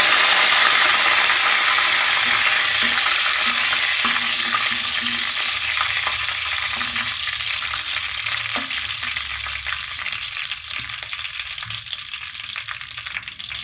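Curry leaves and fenugreek seeds sizzling and spluttering in hot coconut oil in a clay pot, stirred with a metal spoon. The sizzle is loudest at first and slowly dies down as the leaves finish crackling.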